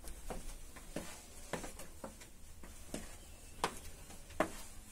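Footsteps scuffing on stone, about seven uneven steps, the last two loudest.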